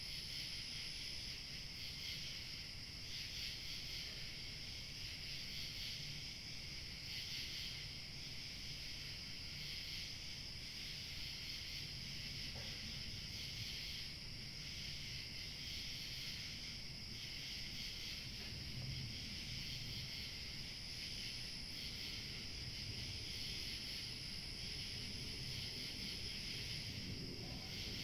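Field crickets chirping in a dense, steady evening chorus. Light wind makes a low, even rumble underneath.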